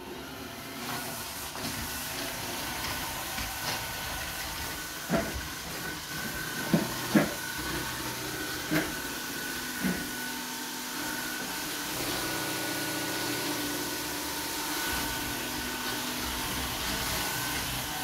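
iRobot Roomba S9 robot vacuum running as it drives across the floor: a steady whirring hiss with a thin high whine. A handful of sharp knocks come between about five and ten seconds in.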